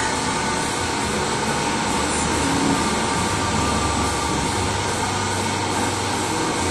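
Metal lathe running, a steady mechanical noise with a faint whine over a low hum.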